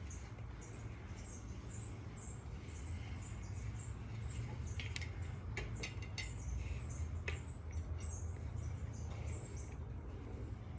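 Wheel and axle being handled and fitted into a BMX frame: faint high squeaks repeating about twice a second, with a few sharp metallic clicks near the middle, over a steady low hum.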